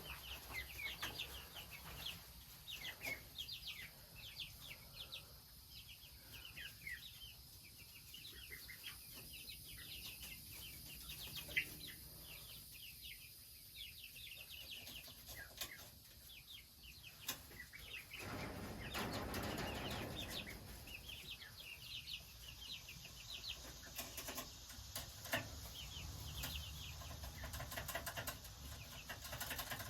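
Young chickens cheeping, many short high calls one after another, with a louder, lower sound lasting about two seconds near the two-thirds mark.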